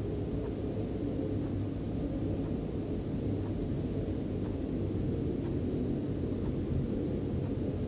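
A steady low rumble with a hum in it, unchanging in level, with a few faint ticks.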